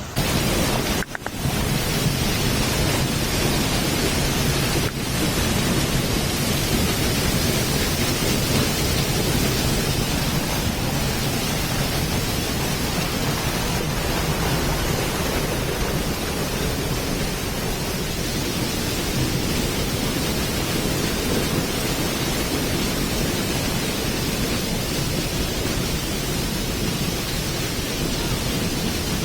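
Waterfall's steady roar of rushing, falling water.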